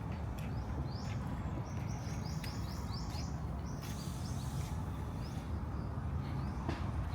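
A songbird singing a run of short, high repeated notes, about three a second, that stops about five seconds in, over a steady low background rumble.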